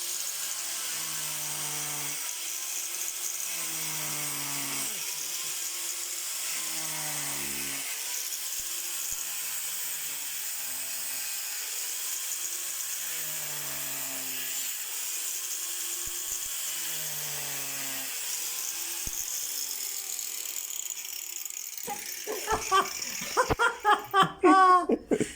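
Angle grinder running steadily as it cuts through a frozen chicken polony, with a lower tone that falls in pitch about every two seconds. Near the end, loud sharp knocks and voices break in.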